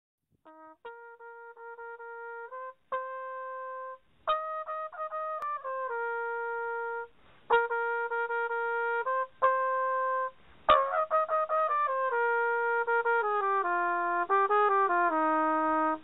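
A solo valved brass horn of the cornet family playing a melody of held notes, one at a time, with short breaks between phrases. Near the end the notes come faster and step downwards.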